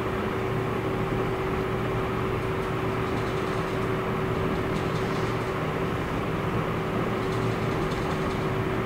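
A steady machine hum with one constant tone runs throughout. Over it, thin kite paper crinkles faintly as it is slit along a fold with a knife, a few times in the middle and near the end.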